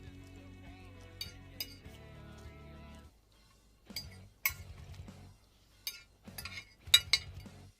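Eating utensils clinking and tapping against a bowl or dishes, a run of sharp clinks over the last few seconds, the loudest near the end. Soft background music plays under the first three seconds and then stops.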